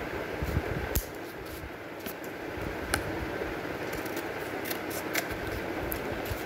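Scissors snipping through stiff layers of glued A4 paper, trimming the edge of a paper photo frame: a run of irregular sharp snips, some close together and some a second or more apart, over a steady faint hiss.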